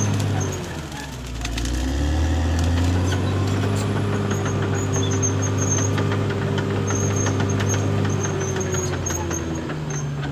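Caterpillar D6R XL bulldozer's diesel engine running under load, its pitch dipping about a second in, then rising back and holding steady before dipping again near the end. Scattered clanks and clicks over the engine.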